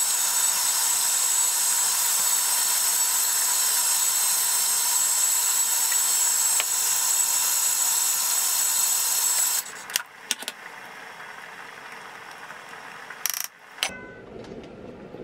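Thermomix TM31 food processor running steadily at speed 4, mixing buttercream, with a high whine over its motor. It stops about ten seconds in, and a few light clicks and knocks follow.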